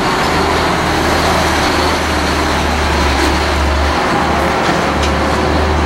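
A truck passing on the road: loud, steady engine drone and road noise.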